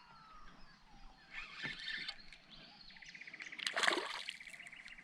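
Water splashing and sloshing around a kayak, with a louder splash just before the fourth second. From about three seconds in, a fast, even, high-pitched ticking runs underneath.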